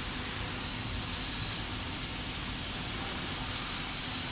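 Steady factory background noise: an even hiss over a low rumble, with no distinct knocks or clicks.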